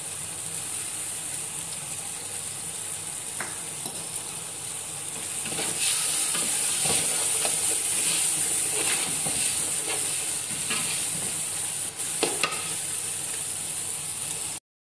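Spiced onion-and-tomato biryani masala sizzling in a large aluminium pot, getting louder about five seconds in as it is stirred. A metal spoon scrapes and knocks against the pot, most sharply near the end. The sound cuts out briefly just before the end.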